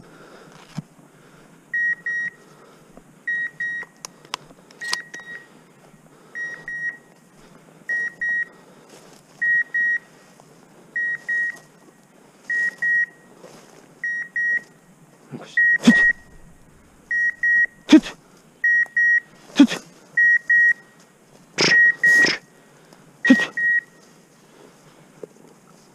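Dog's beeper collar in point mode, giving a short high double beep about every second and a half: the sign that the dog is standing still on point. In the second half, louder crunching footsteps through dry weeds and brush.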